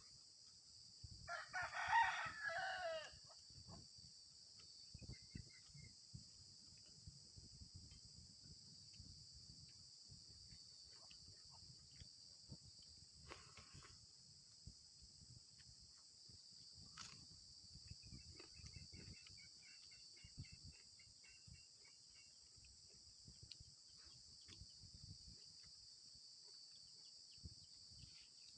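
A rooster crows once, about a second in, and this is the loudest sound. A steady high-pitched insect chorus, crickets, runs underneath, along with soft scattered low knocks and clicks.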